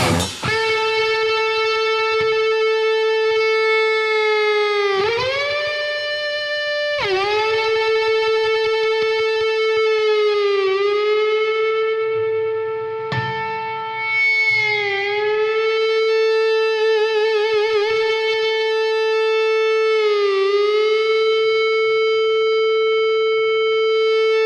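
Fernandes JG-65S electric guitar with a Sustainer Lite pickup holding a single note without dying away, played through effects. The note swoops down in pitch and back about five times, jumps up briefly once, and wavers in a vibrato midway, with a click about halfway through.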